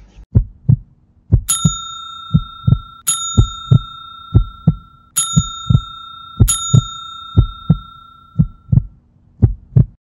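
Subscribe-reminder sound effect: a deep, heartbeat-like double thump about once a second, with a bright bell ding struck four times, each ringing on for a second or more.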